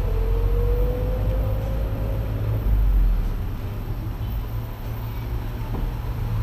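Steady low rumble of the Suzuki Cappuccino's 657 cc turbocharged three-cylinder engine and road noise, heard from inside the cabin as the car drives slowly in city traffic. A faint whine rises slightly in pitch over the first two seconds.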